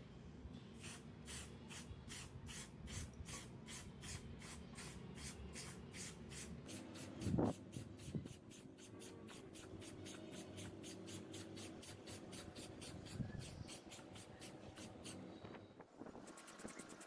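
Aerosol spray-paint can hissing in a fast, even pulsing rhythm of about four pulses a second, stopping a couple of seconds before the end. A single short thump sounds about seven seconds in.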